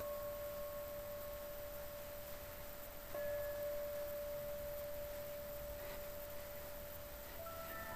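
A pure, steady ringing tone, struck at the start and struck again about three seconds in, each time holding on with little decay, over a faint hiss.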